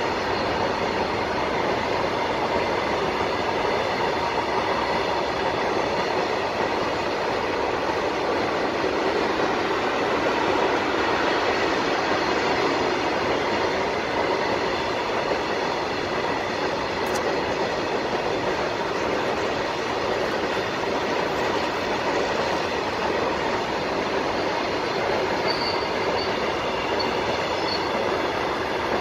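Long Indian Railways goods train of covered freight wagons rolling steadily past, a continuous rumble of wagon wheels on the rails with a thin steady ringing tone above it.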